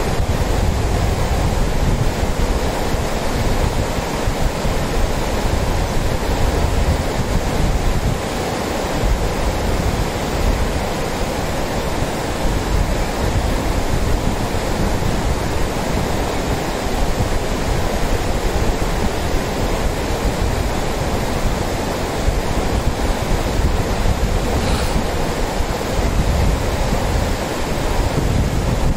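Lidder River rushing over rocks and stones in shallow rapids, a steady loud rush of water, with wind buffeting the microphone as an uneven low rumble.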